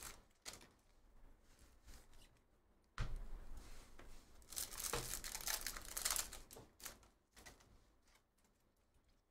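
A trading-card pack wrapper being torn open and crinkled in the hands, starting with a knock about three seconds in, then quieter rustling of the cards as they are handled.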